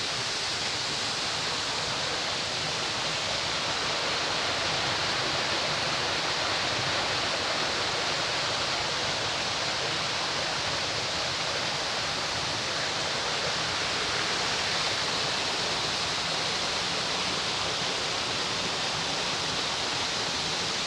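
Waterfall rushing steadily: an even, hissing wash of falling water that does not change.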